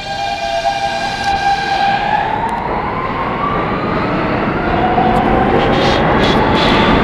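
R160 subway train pulling out of the station: its traction motors whine and climb in pitch as it gathers speed, while wheel and rail noise grows steadily louder.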